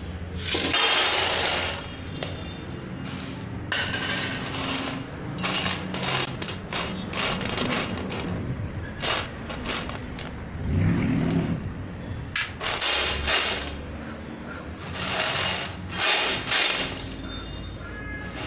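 Raw peanuts rattling and scraping against stainless steel as they are shaken in a sieve and rolled around a steel plate, in repeated irregular bursts of shaking.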